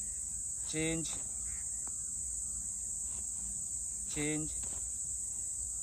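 Crickets chirring steadily at a high pitch, with two brief vocal sounds from a man, about a second in and about four seconds in.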